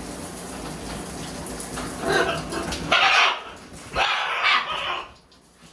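Shower water running, then a parrot calling loudly three times, about two, three and four seconds in.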